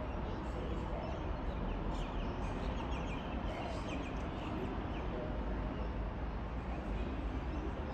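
Steady low rumble of an XPT's diesel power car running in the distance, with birds chirping over it, mostly in the first half.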